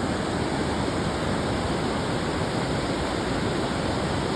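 Rushing water of a river waterfall, a steady, even rush with no breaks.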